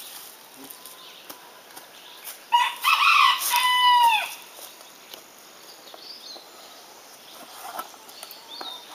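A rooster crowing once, starting about two and a half seconds in and lasting under two seconds, its last note falling away.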